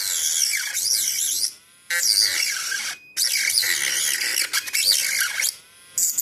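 Mini rotary grinder cutting a plastic or FRP part, a high, screechy whine whose pitch wavers as the load on the disc changes. It cuts out briefly three times as the tool is lifted off the work.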